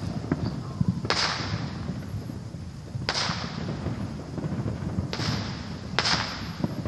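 Fireworks exploding in the distance: four sharp bangs, the first three about two seconds apart and the last a second after, each trailing off in an echo. Under them runs a steady low haze of fainter pops.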